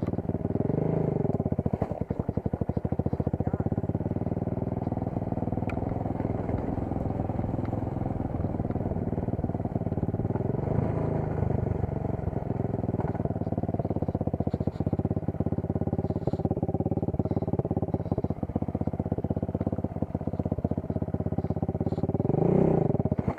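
Small dirt bike engine running steadily under way, revving up briefly about a second in, again around the middle, and near the end.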